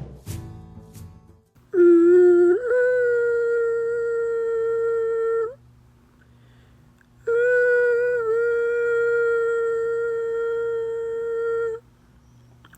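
Two long, steady hummed notes, each about four seconds, with a pause between. The first slides up in pitch about a second in.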